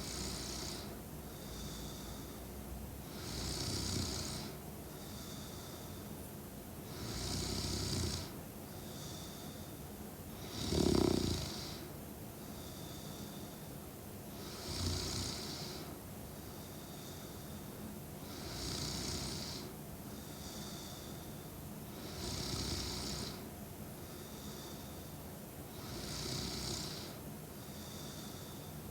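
A young woman snoring in her sleep, a snore about every four seconds with a softer breath out between each. One snore about eleven seconds in is louder and throatier than the rest.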